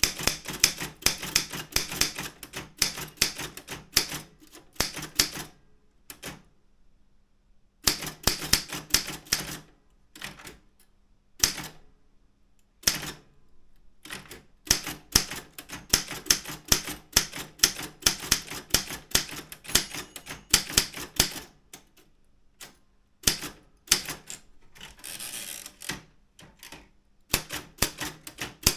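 Daro Optima M16 manual office typewriter being typed on: quick runs of sharp keystrokes, several a second, broken by short pauses.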